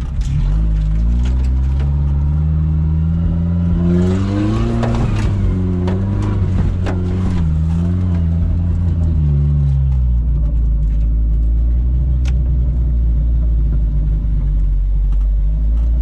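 Suzuki Samurai's engine revving under load while driving off-road. Its pitch climbs over the first few seconds, wavers up and down, then drops back to a steady idle about ten seconds in. Several knocks and rattles come in the middle of the revving.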